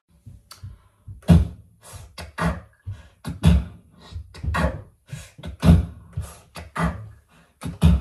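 Harmonica played in short, sharp rhythmic bursts, about two a second, as the introduction to a hymn.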